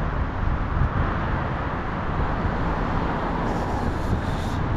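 Road traffic on a multi-lane street: cars passing close by, a steady rush of tyre and engine noise.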